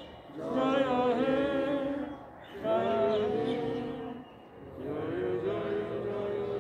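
A few voices singing a slow song together, in long phrases of held notes with short pauses between them.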